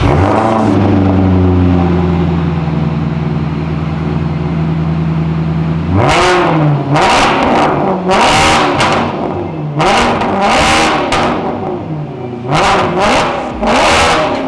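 Maserati GranTurismo V8 with its muffler deleted, coming down from a rev and settling into a steady idle. About six seconds in come six sharp throttle blips, each rising and falling quickly, through the opened-up exhaust.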